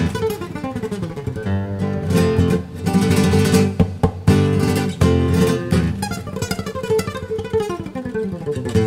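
Background instrumental music: sharp strummed chords with quick runs of notes.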